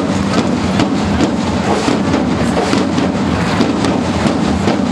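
Marching drums playing a steady, dense roll, many strokes packed close together with no break.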